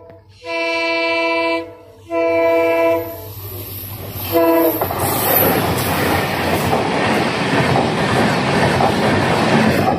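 Indian Railways WDP4D diesel locomotive sounding its multi-tone air horn, a chord of several notes, in two long blasts and then a short one. The locomotive and its passenger coaches then rush past with a steady, loud clatter of wheels on rail.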